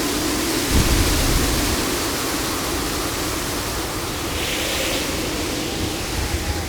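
Storm at sea: a steady rushing noise of wind and surf. A deep low rumble comes in under a second in, and a brief hissing surge of water rises about four and a half seconds in.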